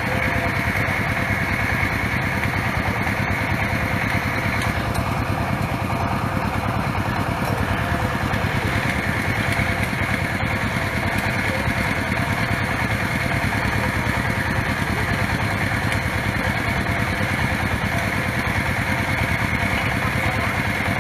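Stationary engine powering a water-well drilling rig, running steadily under load as the well is drilled.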